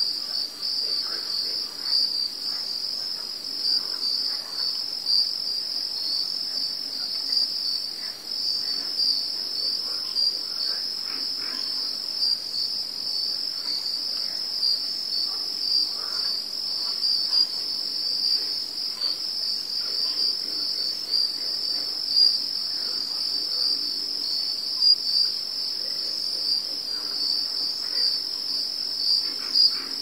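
Night chorus of crickets: a steady, dense high-pitched trill, with faint short sounds scattered beneath it.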